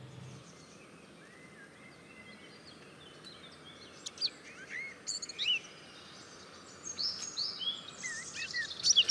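Birds chirping and whistling over a faint outdoor hiss: short, sharp calls that start sparse and come thicker and louder from about four seconds in.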